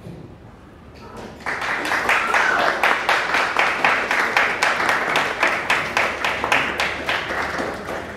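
Audience applause that breaks out suddenly about a second and a half in and continues as a dense, steady clapping, with voices mixed in.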